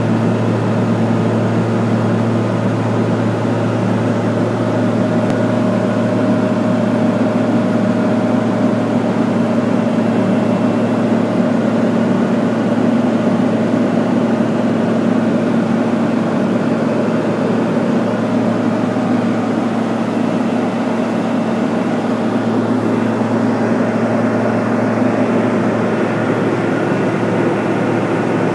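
Pilatus PC-12 single-engine turboprop heard from inside the cockpit in level cruise: a steady low propeller and engine drone with a hum over it, unchanging throughout.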